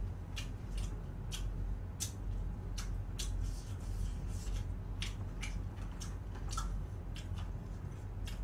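Irregular sharp crunches and crackles of crispy fried chicken being bitten, chewed and pulled apart, about one or two a second, over a steady low hum.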